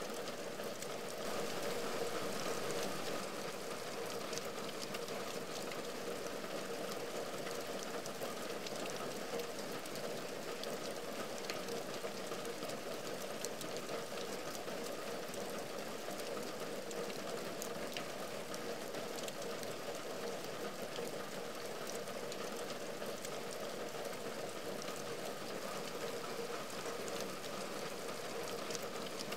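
Heavy rain falling on a window and its ledge: a steady hiss dotted with many separate drop ticks, a little louder about two seconds in.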